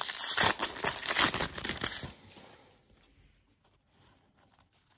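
Foil trading-card pack wrapper being torn open and crinkled by hand, a dense crackly tearing for about two seconds that then stops.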